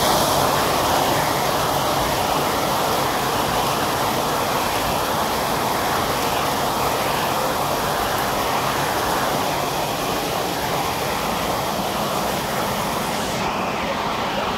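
Heavy rain falling, a steady dense hiss; the highest part of the hiss drops away near the end.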